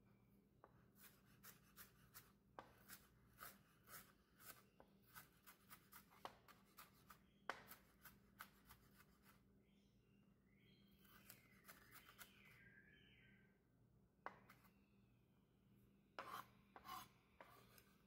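Santoku knife chopping red onion on a plastic cutting board: a quick run of light taps of the blade on the board, two or three a second. Near the end come a few scattered knocks and scrapes as the diced onion is gathered and scooped up on the blade.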